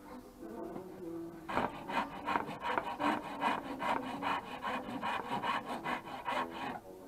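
Hand rasp scraping along the spiral groove of a carved wooden walking stick in quick back-and-forth strokes, about four or five a second. The strokes begin about a second and a half in and stop just before the end.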